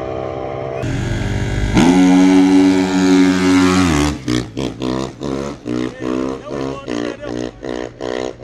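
Dirt bike engine running hard down the drag strip, getting loud as it passes with a steady high pitch that drops away suddenly as it goes by. It is followed by a rhythmic pulsing sound about twice a second.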